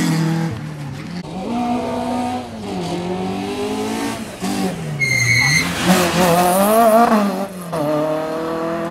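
Rally hatchbacks, a Renault Clio and then a Citroën C2, driven hard through a slalom: the engines rev up and drop off several times through the chicanes, with a brief high tyre squeal about five seconds in.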